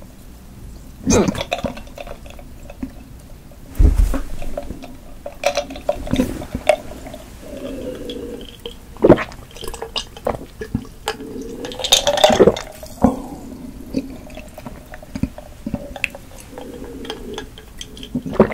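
Close-miked gulping and swallowing of a drink from a glass jar mug, with wet mouth clicks and a dull knock about four seconds in.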